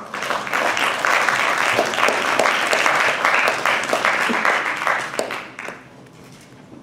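Audience applauding, a dense round of clapping that dies away about a second before the end.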